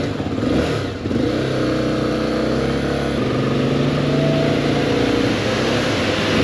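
Motorcycle engine running as the bike climbs a steep street in traffic. Its note dips briefly about a second in, then runs steady.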